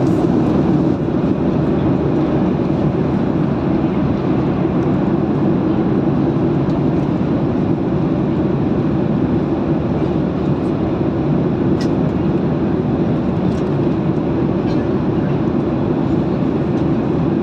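Steady low rumble of a moving vehicle heard from inside the cabin, road and engine noise, with a few faint ticks near the end.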